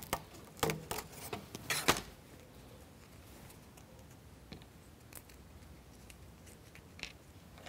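Small plywood model parts clicking and knocking against each other as they are handled and fitted together: a quick run of clicks in the first two seconds, then a few faint ones.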